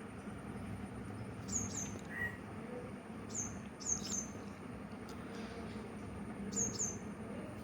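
A small bird chirping: short, high, falling chirps, mostly in quick pairs, repeated a few times over a low steady background hum.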